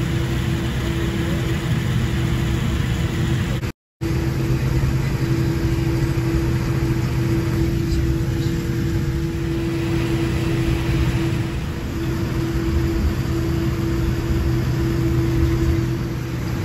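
Steady cabin noise inside a Boeing 787-10 on the ground after landing, its jet engines at idle, with a steady low hum. The sound cuts out completely for a moment about four seconds in.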